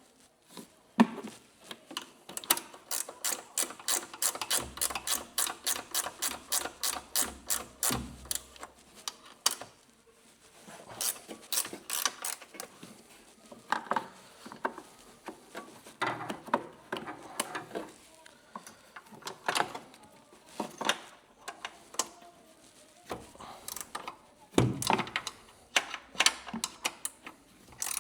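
Hand ratchet wrench clicking, a steady run of about five clicks a second for several seconds while working a fastener loose during coilover removal, followed by shorter runs of ratcheting and metal tool knocks, with one heavier knock near the end.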